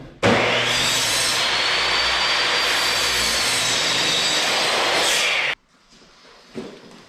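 Ryobi miter saw cutting the end off a 2x8 board: the motor whine rises sharply as the blade spins up, then holds steady and loud through the cut and stops abruptly about five and a half seconds in. A few faint knocks of the lumber being handled follow.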